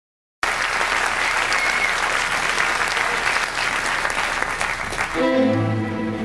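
Concert audience applauding. About five seconds in the applause gives way to the band starting the song's introduction, sustained notes over a low bass tone.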